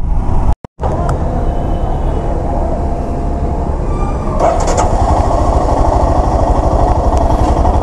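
Royal Enfield Himalayan BS6's 411 cc single-cylinder engine being started and running with a steady low chugging, after a brief dropout near the start; about four seconds in it gets louder. The bike has a recurring starting problem that a newly fitted fuel pump has not cured.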